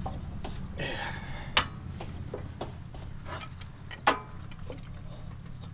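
Clicks and knocks of a garden tractor's belt and pulleys being handled as the belt is stretched over a pulley, with two sharper knocks about one and a half and four seconds in, over a steady low hum.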